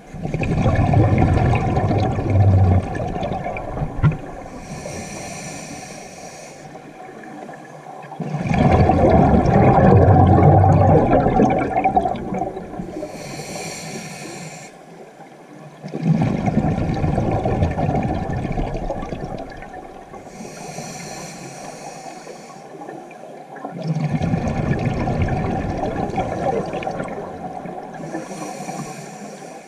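Scuba diver's breathing through the regulator, heard underwater: a long bubbling exhale followed by a short hiss of inhale through the demand valve, repeating about every eight seconds, four breaths in all.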